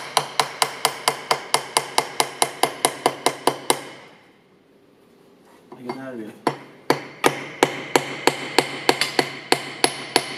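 A hammer strikes a metal tool held against a stripped-down Subaru EJ20 engine, in rapid, evenly spaced taps with a metallic ring, about four a second. The taps stop for about two seconds near the middle, then resume.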